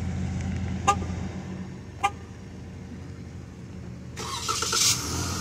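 Car engine running with a steady low rumble. Two short sharp clicks come about a second apart, and a loud rushing hiss starts about four seconds in.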